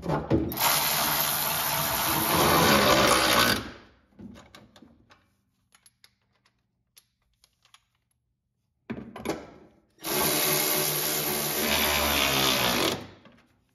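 Milwaukee cordless ratchet running twice, about three seconds each time, driving bolts into the truck's inner fender tub. A few light clicks of handling fall in the gap between the two runs.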